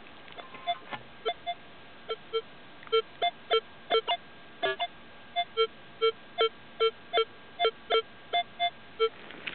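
Minelab X-Terra 705 metal detector with a 10x15 DD coil giving short electronic target beeps as the coil is swept back and forth over a target, about two to three a second. The beeps come at a lower and a higher pitch, and grow louder after the first few seconds.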